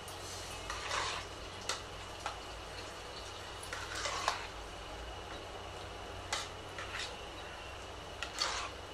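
Metal spoon mixing soft cooked rice in a pressure cooker: brief wet swishes of the rice and scattered clicks of the spoon against the pot, at irregular intervals.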